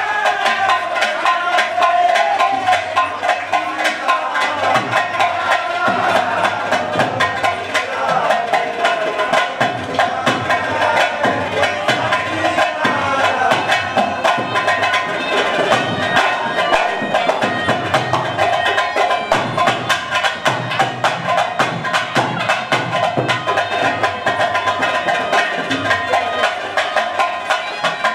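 Live folk dance music: a sustained, bending melody line over a fast, steady hand-drum beat with sharp percussive strokes.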